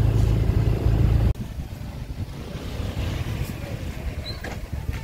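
A motor scooter's engine running with a steady low hum, cutting off abruptly about a second in and leaving quieter outdoor background noise.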